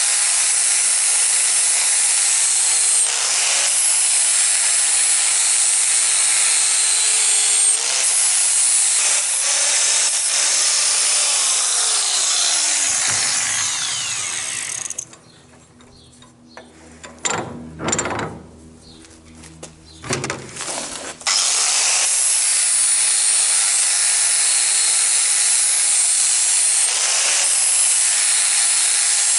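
Angle grinder running against a steel flat bar held in a vise, a loud steady shriek whose motor pitch dips and recovers as it is pushed into the metal. About halfway it winds down, leaving a few seconds of clanks and knocks of handling, then it starts again and goes back to the steel.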